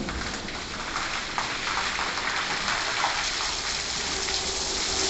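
Water and foam from a WashTec SoftCare 2 Pro car wash gantry's FoamSensation foam curtain pouring and spattering onto a car, a steady rain-like splashing hiss that grows louder about a second in. A steady machine hum joins near the end.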